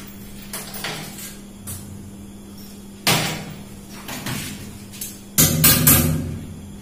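Knocks and bangs from a wall-hung washbasin cabinet and hand tools being handled on a tiled floor: a few light taps, a sharp knock about three seconds in, and a louder cluster of bangs a little after five seconds, over a steady low hum.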